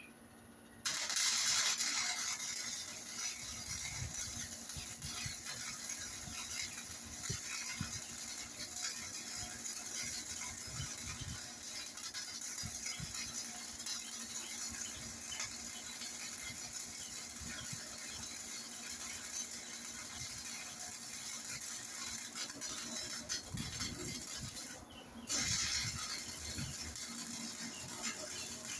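MIG welding arc crackling steadily as a test bead is run to set the machine for the tubing's thickness. It starts about a second in, breaks off briefly near the end, then strikes up again.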